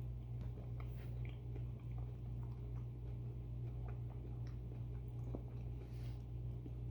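Someone eating a Dairy Queen Blizzard: soft chewing and scattered small clicks from spoon and mouth, over a steady low hum.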